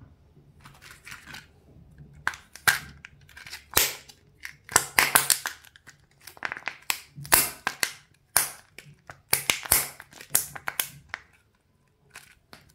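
Thin plastic packaging of a character-shaped candy toy crinkling and crackling as fingers squeeze and work at it, in irregular clusters of sharp crackles and pops.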